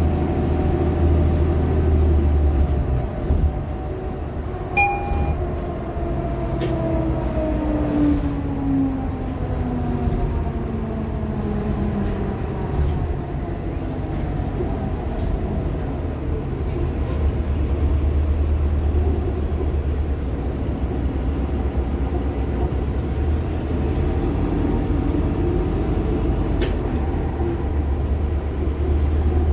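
Interior ride noise of a 2015 Nova LFS Artic hybrid bus with a Cummins ISL9 diesel and Allison H50 EP hybrid drive: the low engine drone eases off, and a drive whine glides down in pitch as the bus slows, then the drone and whine build again later as it pulls away.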